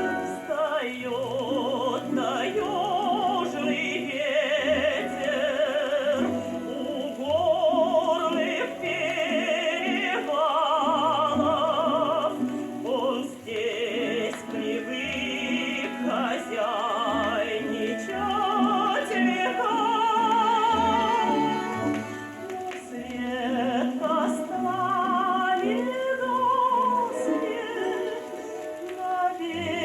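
Music played from an old gramophone record: a high melody with strong vibrato over orchestral accompaniment, the sound cut off above the upper middle range with faint surface noise.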